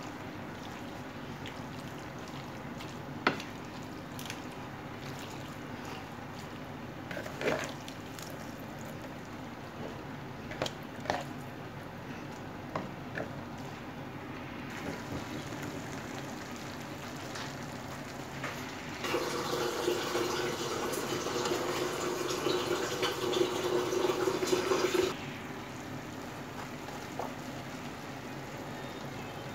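Two wooden spatulas stir and toss farfalle and spinach through a creamy sauce in a frying pan, with a few sharp knocks of wood on the pan over a steady low sizzle. About two-thirds of the way through, a louder steady rushing sound comes in for about six seconds and stops abruptly.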